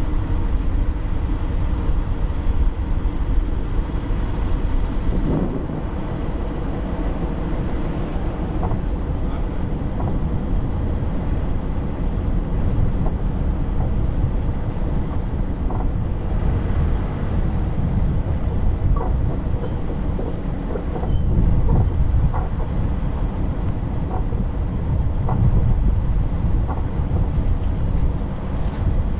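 A vehicle driving: a steady low rumble of engine and tyre noise.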